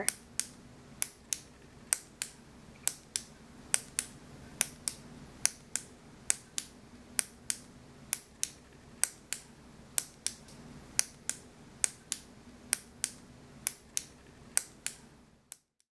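Retractable ballpoint pen being clicked over and over, each press and release giving a sharp double click, about one pair a second. It stops shortly before the end.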